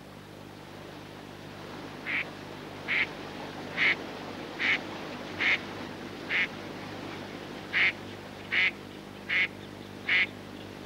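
A duck quacking in a steady series of about ten short quacks, roughly one a second, starting about two seconds in, over a steady low hum.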